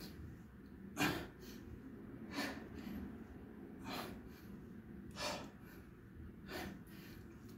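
A man's forceful breaths in time with dumbbell side bends: five short, sharp exhales about a second and a half apart, one with the effort of each repetition.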